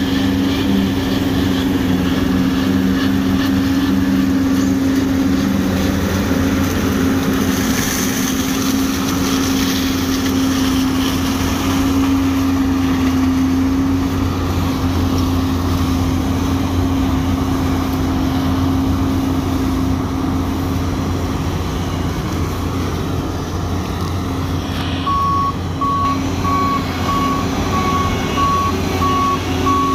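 New Holland CX 6.90 combine harvester running under load as it harvests grain maize, a steady engine drone with the hum of the threshing gear. Near the end a reversing alarm starts beeping in an even rhythm.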